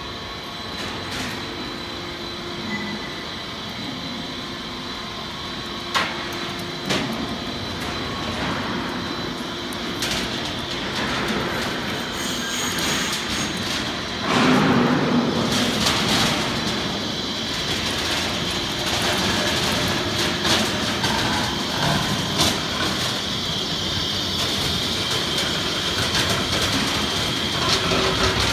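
Heavy-gauge purlin roll forming machine running, steel strip feeding through its chain-driven forming rollers: a steady mechanical noise with a thin high whine and occasional sharp metallic clicks and knocks, getting louder about halfway through.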